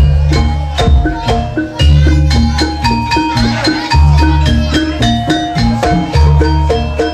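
Live Javanese gamelan music for a jaranan dance: metallophones ring out a quick melody over deep low strokes that come about every two seconds.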